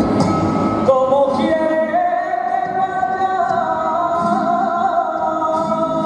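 Male flamenco singer (cantaor) singing a temporera. About a second in he starts a new phrase, then holds a long, wavering, ornamented note.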